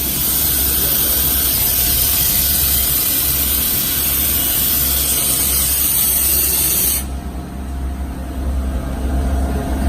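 High-feed milling of S45C carbon steel on a CNC machine: a steady, loud cutting hiss with a very high edge, over the machine's low hum. The hiss cuts off suddenly about seven seconds in as the cut ends, leaving the machine running.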